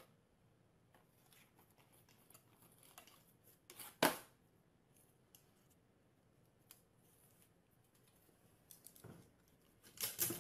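Mostly quiet room with sparse light clicks and rustles. One sharper, louder click comes about four seconds in.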